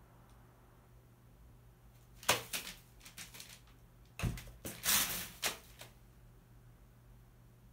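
Crow pecking and stepping on newspaper spread over the floor: clusters of sharp taps and paper rustles about two seconds in, and a busier run with a dull knock from about four to six seconds in.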